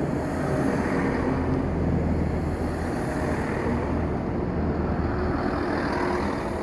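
Class 166 Turbo diesel multiple unit running slowly past close by as it draws into the platform: a steady low engine drone with rolling wheel and track noise.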